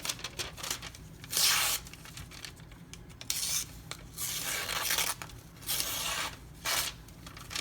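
Microtech UTX-70 knife slicing through paper in about five separate cuts, the longest lasting about a second: a sharpness test of an M390 edge freshly polished on a 4000-grit diamond stone.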